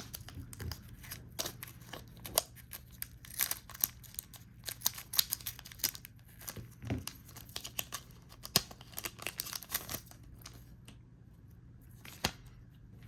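Crinkling and tearing of a trading-card booster pack's wrapper as it is opened, with the cards being handled: a run of quick crackles and rustles that goes quiet about three seconds before the end.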